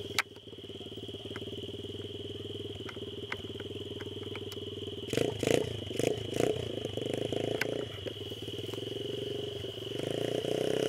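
Small dirt bike's engine running at low revs, with a few throttle blips about halfway through and revving up near the end.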